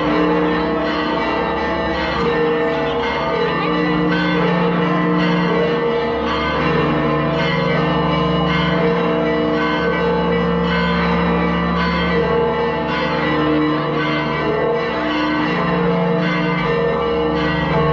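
Church bells ringing continuously, many strokes overlapping so the ringing keeps up at a steady level throughout.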